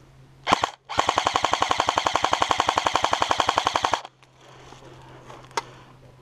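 STG 44 airsoft electric rifle firing: a short burst, a brief pause, then a sustained full-auto burst of about three seconds, the gearbox cycling rapidly and evenly before cutting off abruptly. A single sharp click follows about a second and a half later.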